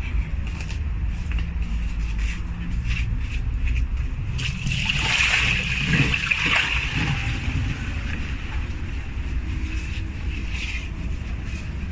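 Water splashing and sloshing, loudest for a couple of seconds in the middle, over a steady low rumble with scattered short clicks.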